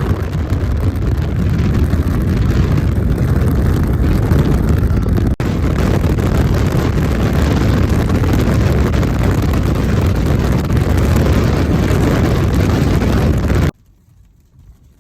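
Loud, steady rushing roar of strong wind buffeting the microphone, heaviest in the low rumble. It starts and stops abruptly, with a brief break about five seconds in.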